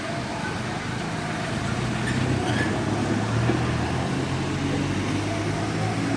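Steady city traffic noise, with the low drone of a vehicle engine growing louder about two seconds in.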